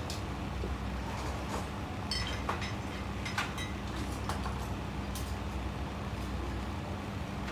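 Steady low machine hum, with a few scattered light clicks and taps over it.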